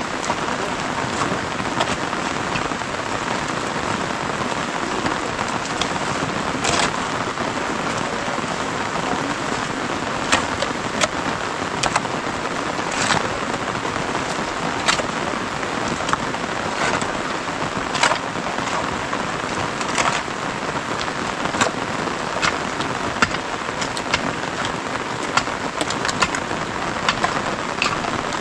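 Steady rain hissing on the ground and a metal roof, with scattered sharp knocks and ticks every few seconds.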